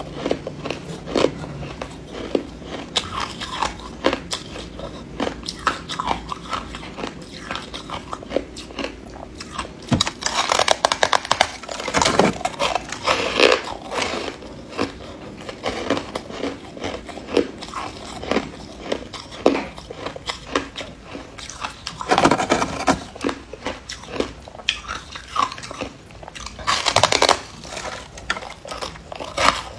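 Hard white ice being bitten and chewed: a steady run of crisp crunches and cracks, with several louder spells of heavy crunching.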